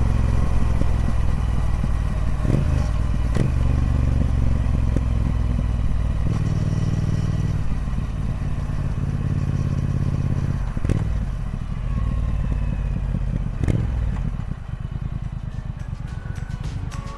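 Triumph Speed Twin 1200's 1200cc parallel-twin engine running through its stock exhaust, with a few sharp clacks. In the last few seconds it settles quieter into an even, pulsing beat.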